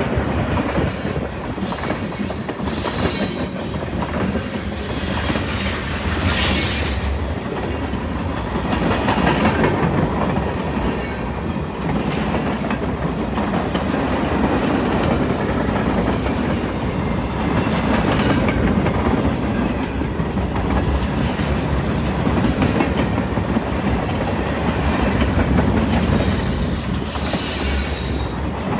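Freight train cars rolling past with steady wheel-on-rail noise and clickety-clack over the rail joints. High wheel squeal comes in bouts during the first several seconds and again near the end.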